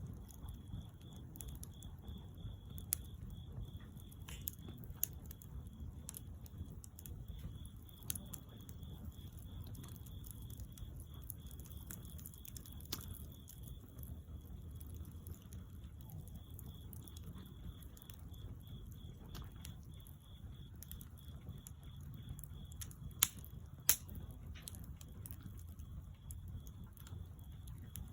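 Wood bonfire burning and crackling, with scattered sharp pops over a low steady rumble; the two loudest pops come close together near the end.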